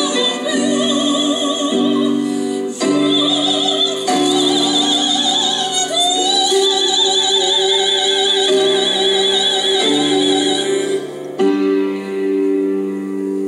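Operatic singing with wide vibrato over piano accompaniment. The voice stops near the end, leaving a piano chord that rings on and fades.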